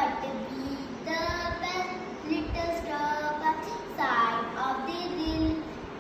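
A young girl reciting a poem aloud in a sing-song, chanting voice, her phrases held and gliding in pitch.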